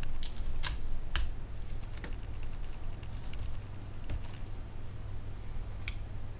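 Fingers picking at the small plastic tabs and parts inside an opened netbook, giving a scatter of small, irregular clicks and taps.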